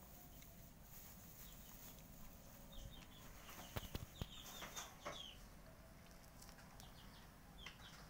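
A cat eating dry kibble from a metal bowl: faint, quick crunches and clicks of kibble in the bowl, bunched together a few seconds in and once more near the end.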